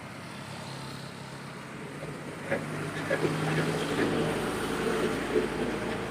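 Heavy truck engine running, growing louder about halfway through, with a few short sharp knocks.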